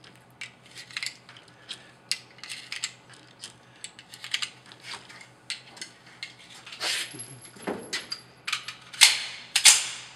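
Cartridges being loaded into a Kimber 1911 .45 ACP magazine: a run of small metallic clicks. Near the end come a few much louder bangs with ringing, gunshots on the range.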